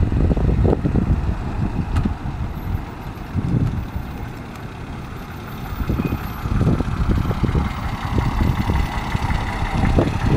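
1936 Rolls-Royce 20/25's 3669cc inline six running as the car drives slowly by, with wind buffeting the microphone in gusts.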